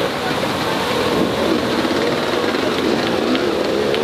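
Dirt bike engine revving in repeated bursts, its pitch rising and falling, as an enduro rider works the motorcycle up a wet rock slab, over a steady rush of water from a waterfall.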